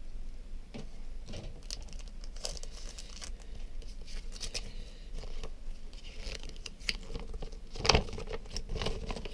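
Paper packaging crinkling and rustling as it is handled, with scattered small clicks and a sharper crackle about eight seconds in.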